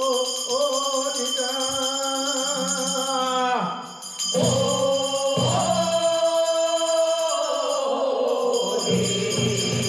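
Korean funeral bier song (sangyeo sori) sung in long, drawn-out held notes, with the line "once gone, never to return" (hanbeon gamyeon mot orira). There is a short break in the singing about four seconds in before the next phrase.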